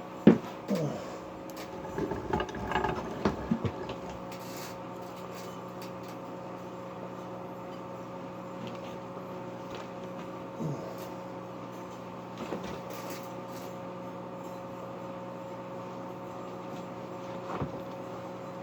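Microwave oven running with a steady multi-tone hum while a high pressure sodium bulb is energised inside it. A few short sharp sounds come in the first four seconds.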